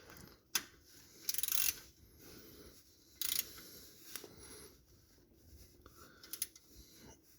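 Socket and ratchet on a car's oil drain plug: scattered metallic clicks and two short scraping bursts as the socket is fitted and the plug is tightened down.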